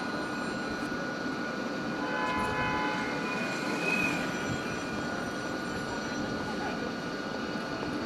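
Steady city ambience with a constant mechanical whine of several held tones, which thickens for a few seconds midway.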